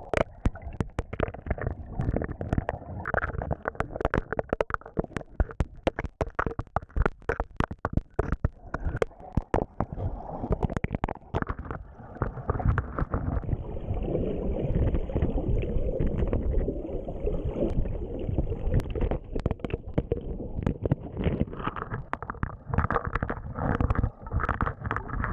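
Muffled underwater gurgling and sloshing with many irregular clicks and knocks, picked up by a GoPro lying submerged after the FPV drone carrying it crashed into the water.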